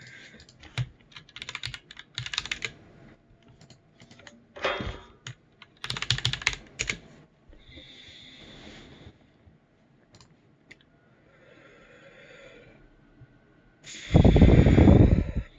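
Typing and clicking on a computer keyboard in scattered runs of keystrokes. Near the end, a louder, longer burst of noise of about a second and a half stands out.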